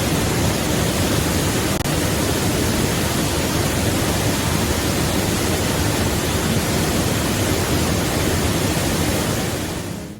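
Waterfall, swollen after rain, rushing in a loud, even roar of falling water that fades out near the end.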